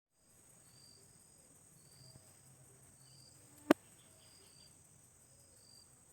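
Crickets or other insects droning steadily at a high pitch, with short chirps repeating about every second and a half. One sharp click sounds a little past halfway through.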